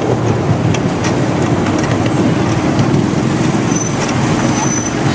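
Miniature railway train running along the track, heard from a passenger car: a steady rumble of wheels on the rails.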